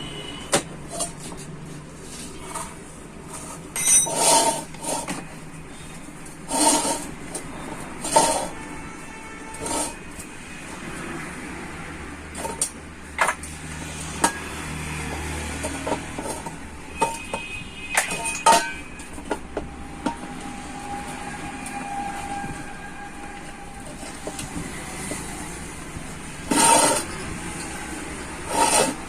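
Metal tyre levers and tools clanking and scraping on an auto rickshaw's steel wheel rim while a new inner tube and tyre are worked into place. The knocks are irregular, with several louder clanks that ring briefly. Steady traffic noise runs underneath.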